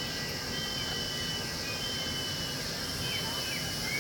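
Night chorus of insects and other creatures: a steady high buzzing, long repeated high whistling notes and a few short chirping calls, over the even roar of the waterfall.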